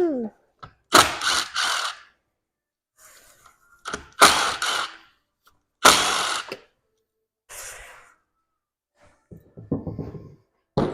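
Hand ratchet wrench clicking in about five short runs as bolts are backed out to pull the reed valves off a two-stroke engine.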